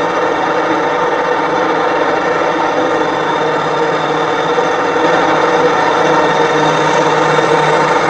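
Forestry harvester's diesel engine running under load as the machine crawls through deep mud, a steady drone with a slight rise in loudness about five seconds in.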